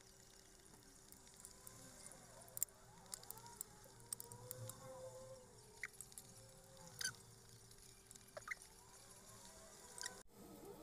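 Metal fork and spoon clinking against a bowl and stirring through saucy food: a scatter of light, sharp clinks and soft wet sounds.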